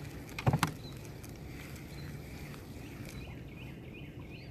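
A quick cluster of sharp knocks on a small fishing boat about half a second in, over a steady low background. A run of faint short chirps follows near the end.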